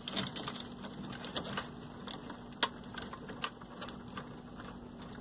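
Hand handling noise inside a TV chassis: wires rustling and small irregular clicks and taps as the power supply board is tilted up, with two sharper clicks about two and a half and three and a half seconds in, over a faint steady hum.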